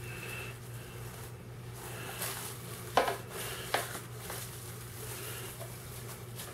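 Plastic cling wrap crinkling faintly as it is stretched and pressed over a loaf pan. Two sharp knocks come about three seconds in, a little under a second apart.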